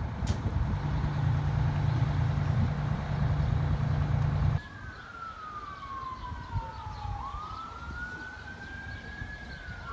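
A heavy engine runs loudly with a steady low hum for the first few seconds, then cuts off abruptly. After that an emergency vehicle's siren wails in long, slow sweeps, falling in pitch, rising again, then falling, with a second siren overlapping faintly near the end.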